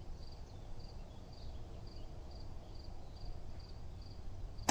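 Insects chirping steadily in the background, a faint high chirp about three times a second, over a low outdoor rumble. At the very end a sharp snap as the drawn slingshot is released.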